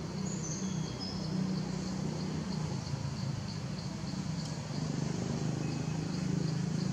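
Insects chirping in a steady rhythm of about three chirps a second over a constant low motor hum, with a couple of brief high whistles near the start.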